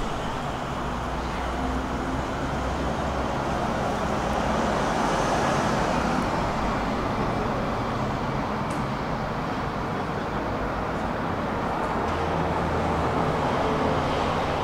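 Steady road traffic noise: motor vehicles running and passing, with a low engine hum that comes and goes and a passing swell about five seconds in.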